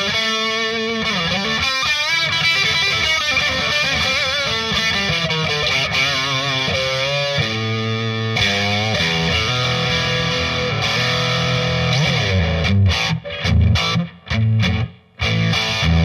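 Distorted electric guitar through a Marshall DSL40C tube combo on its green crunch channel, pushed into saturation by a Timmy overdrive pedal and played through a Celestion Creamback speaker. It plays a lead line of held notes with bends and vibrato, then in the last few seconds short, choppy chords with silences between them.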